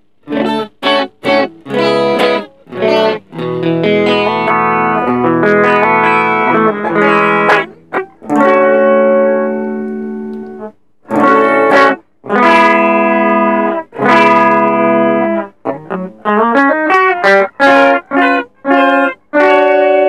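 Electric guitar played through a TC Electronic Plethora X5 running the Mimiq Doubler, which thickens the guitar into several layered takes. Short choppy chords with gaps between them come first. Held chords ring for a couple of seconds each in the middle, and quick picked notes follow near the end.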